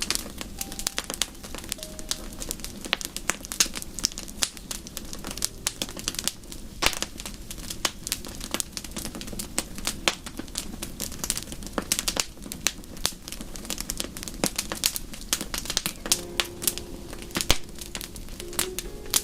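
Wood fire crackling in a fireplace: a dense, irregular run of sharp pops and snaps over a steady low rumble of the burning fire.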